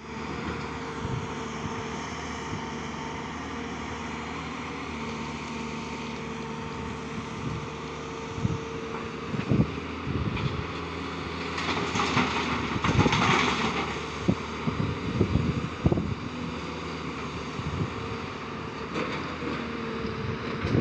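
Tata Hitachi 200 Super hydraulic excavator's diesel engine running steadily under working load. Through the middle come scattered knocks and a louder clatter of rock and earth being dumped from the bucket into a dump truck's steel bed.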